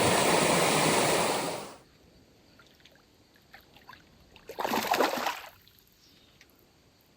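Rushing water pours loudly over rock and cuts off abruptly about two seconds in. Then comes quiet open water with a few small ticks and one splash about five seconds in.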